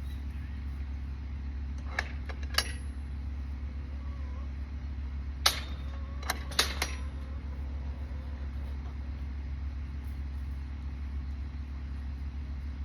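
Vehicle engine running steadily with a low drone, with a few sharp clicks or knocks around two seconds in and again between about five and a half and seven seconds in.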